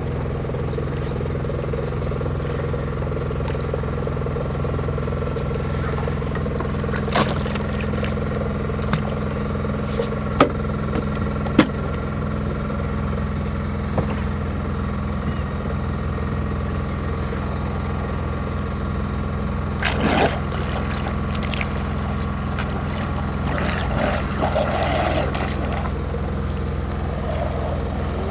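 Steady low engine drone from a boat, with a few sharp knocks and splashing water where the surfaced underwater vehicle churns the surface, mostly near the end.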